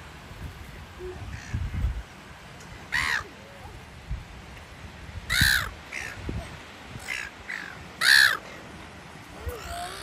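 Silver gulls calling: three loud calls about 3, 5½ and 8 seconds in, with several shorter, fainter calls between them. A few low thumps come in the first two seconds.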